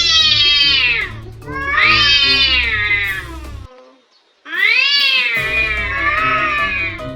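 Cat yowling in three long, drawn-out calls that rise and fall in pitch, the threatening yowl of a cat squaring up to fight. Background music plays underneath, and everything drops out briefly about four seconds in.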